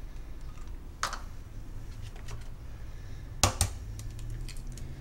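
A raw egg being cracked: two quick, sharp taps of the shell against a rim a little past the middle, with a lighter click about a second in.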